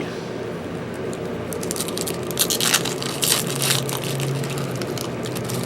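Trading cards and pack wrappers being handled: a run of quick crinkling and rustling, busiest in the middle, over a steady low hum.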